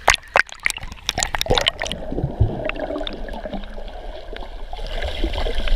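Seawater splashing and slapping against a waterproof action camera held at the surface, a quick run of sharp splashes. After about two seconds the camera goes under, and the sound turns muffled, with low underwater gurgling.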